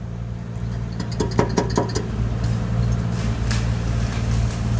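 Stick-welding arc crackling and popping over the steady hum of an engine-driven welding machine. The crackle comes in about a second in with a quick cluster of sharp pops, then keeps on sputtering irregularly.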